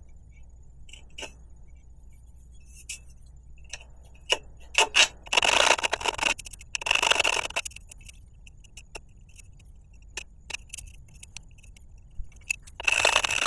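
Small hand file scraping the edges of freshly drilled holes in a bicycle frame's down tube to deburr them: a few short scraping strokes, two around the middle and one near the end, with light clicks and taps in between.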